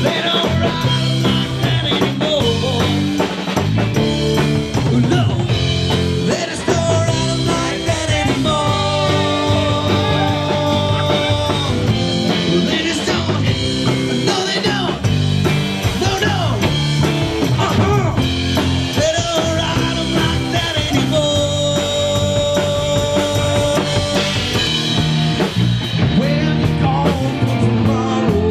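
A live rock band playing: electric guitar, bass guitar and drum kit, with held, bending lead notes over a steady beat.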